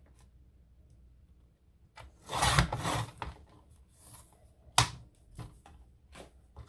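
Paper being cut: a rasping cut lasting over a second about two seconds in, then a sharp click and a few light taps near the end.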